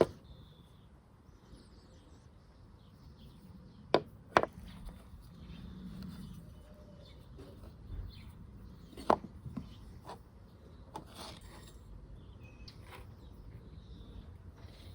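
A few sharp clicks and knocks of tools and parts being handled: two close together about four seconds in, then one louder knock and a few lighter clicks a few seconds later, over faint background noise.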